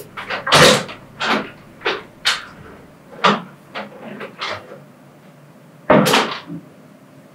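A young woman crying: a run of short, sharp sobbing breaths and sniffles, with a wooden door being shut as someone leaves the room.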